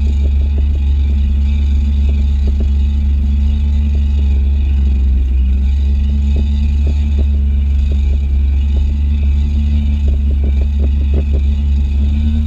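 Kawasaki stand-up jet ski's engine running steadily at speed, a loud low drone with water slapping against the hull.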